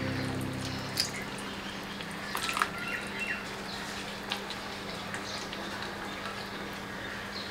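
Cashew nut paste poured into curry gravy in a kadai, then a spatula stirring through the gravy with small wet clicks and scrapes. A music track fades out about a second in.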